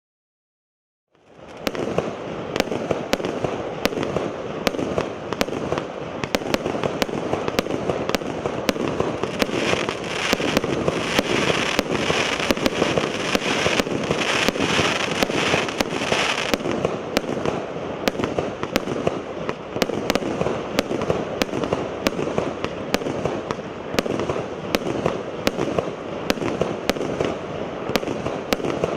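Firework battery (cake) firing: after about a second of silence it starts, and shot after shot goes off at about two to three a second over a continuous crackling din, with a louder stretch of crackling in the middle.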